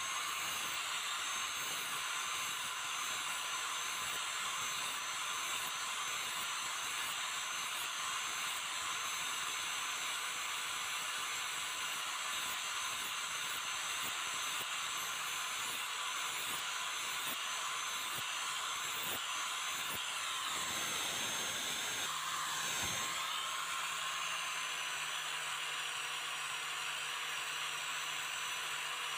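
Electric angle grinder running, its disc grinding rust off an old steel blade: a steady high motor whine over a rasping grinding hiss. The pitch dips and recovers briefly about three quarters of the way through as the load on the disc changes.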